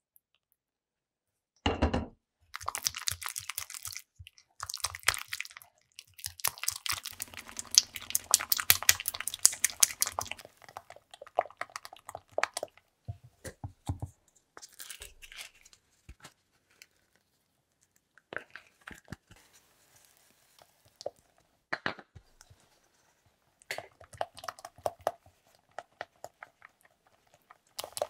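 Silicone spatula stirring and folding a thick, wet cream in a glass bowl: irregular runs of short squelching clicks, stopping and starting several times.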